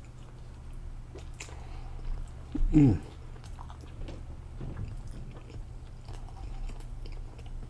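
Close-miked mouth sounds of someone eating a cod wrap: chewing and biting with small wet clicks. About three seconds in comes a short vocal "mm" that falls in pitch.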